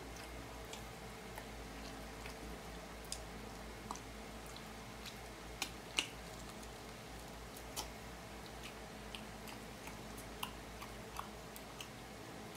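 Close-up mouth sounds of a person biting and chewing fried chicken off the bone: scattered wet smacks and crunchy clicks, the sharpest about six seconds in, over a faint steady hum.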